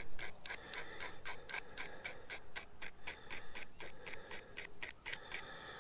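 Small hand file scraping in quick, even strokes, about five a second, across the barb of a steel treble hook, filing the barb off. The strokes stop shortly before the end.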